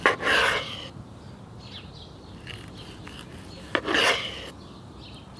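A long knife slicing down between the bones of a rack of smoked spare ribs, twice. Each cut is a sharp click followed by about half a second of scraping as the blade goes through the crust onto the cutting board.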